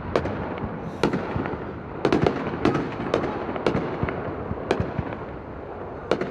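Many fireworks going off at once: irregular sharp bangs and pops, several a second at times, over a steady din of more distant bursts and crackle.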